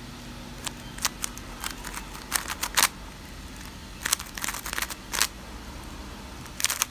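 GAN 356 X magnetic 3x3 speed cube, factory-lubricated, having its layers turned by hand: quiet plastic clicks and clacks in irregular flurries, the loudest about two and a half seconds in and around four to five seconds in.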